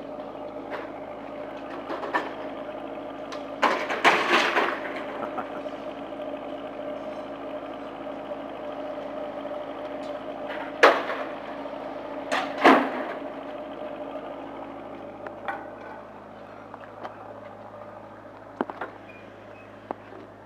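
Diesel engine of a Liebherr R944 C crawler excavator idling steadily, growing fainter about two-thirds of the way through. A few sharp knocks or clanks break in, the loudest about 11 seconds in.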